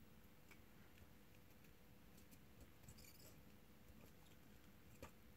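Near silence: faint room tone with a few small faint clicks and a brief faint hiss about three seconds in.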